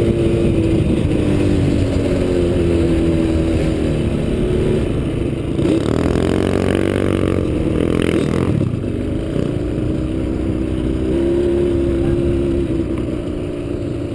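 Yamaha Raptor ATV engine running under steady throttle while riding on sand. About halfway through, the revs rise and fall back, with a brief rush of noise, before the engine settles to a steady pull again.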